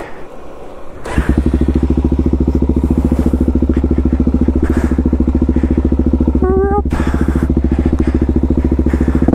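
Suzuki DR-Z400S's single-cylinder four-stroke engine running steadily with an even, pulsing beat, coming in strongly about a second in after a quieter start.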